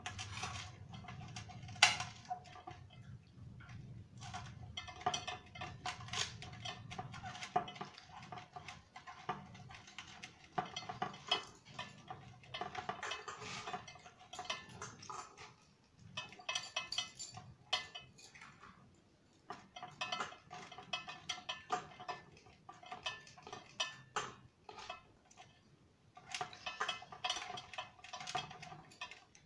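Stainless-steel plates and bowls clinking and scraping as rice and curry are eaten by hand, with irregular sharp clinks throughout, the loudest about two seconds in. A steady tone comes and goes behind them.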